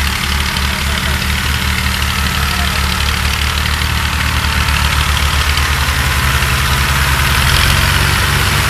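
Farm tractor's diesel engine running slowly while it pulls a loaded trolley: a steady low chug that grows louder toward the end as the tractor comes up close.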